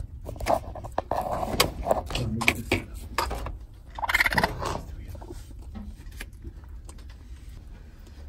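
Baby raccoons chittering in a metal window well, among scattered clicks and knocks, with a louder burst about four seconds in.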